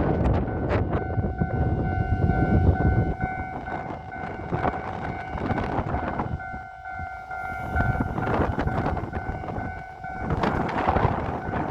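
Railway level-crossing warning signal ringing with a steady tone. A passing train's rushing noise is loudest over the first few seconds, and gusts of wind buffet the microphone later on. The ringing fades near the end.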